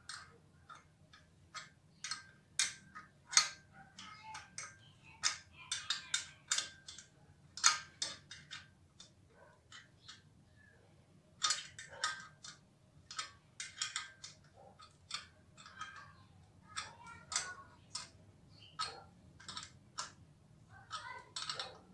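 A small wrench working the screw of a metal clamp on a motorcycle exhaust pipe: irregular sharp metallic clicks and taps, some in quick runs, as the clamp is tightened.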